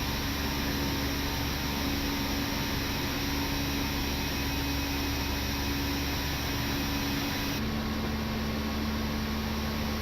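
Steady flight-deck noise of an Airbus A319 in flight: an even rush of airflow with a steady low hum. About three quarters of the way through, the hum drops slightly in pitch.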